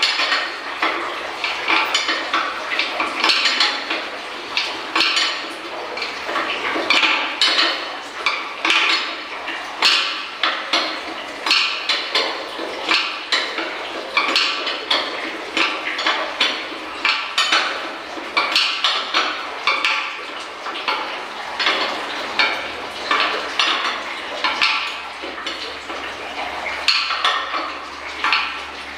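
Manual chain hoist being hauled on, its steel hand chain rattling and clinking through the block with a ratcheting clank about once a second as each pull raises the load.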